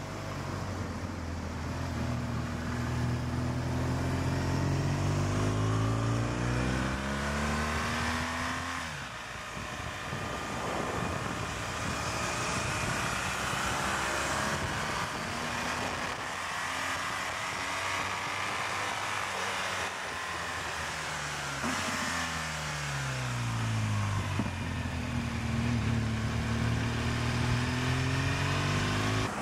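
Motorcycle engine heard from on board while riding, its pitch climbing under throttle over several seconds, dropping near the ninth second, and climbing again later, with wind rushing over the bike throughout.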